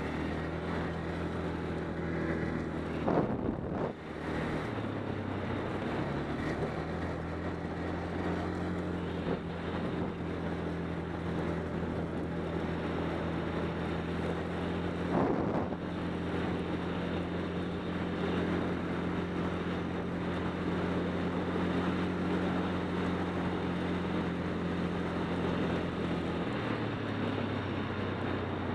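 ATV engine running at a steady speed under way on a rough trail, with some wind on the microphone. About three seconds in there is a jolt and the engine note briefly drops, there is another knock around fifteen seconds, and near the end the engine note steps down to a lower pitch.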